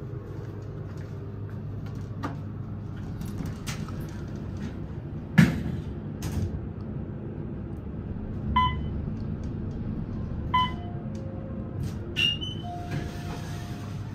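Traction elevator car (an Otis modernization of a Westinghouse installation) riding with a steady low hum. A sharp knock comes about five seconds in, followed later by a few clicks and brief pitched tones.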